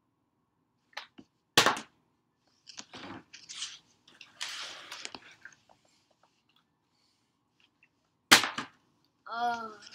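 A plastic water bottle hitting a hard floor with sharp smacks, twice loudly (about a second and a half in and again near the end, the second the loudest). In between, scuffling and rustling of someone crawling on the floor to fetch it, and a short pitched squeak just before the end.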